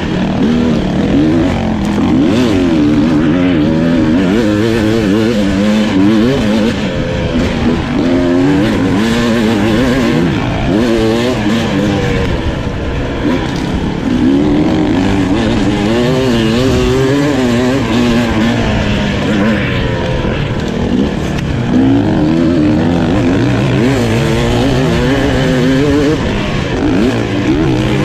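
2024 Beta RR 300 two-stroke enduro bike's single-cylinder engine, heard from on board, revving up and down over and over as it is ridden along a tight dirt trail.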